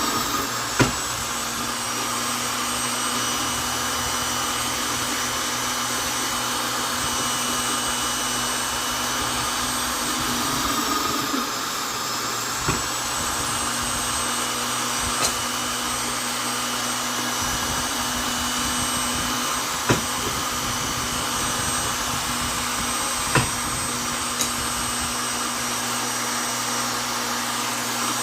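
Vonder electric drill running steadily with a high motor whine; about ten seconds in the whine sags briefly in pitch, as if under load, then recovers. A few sharp clicks punctuate it.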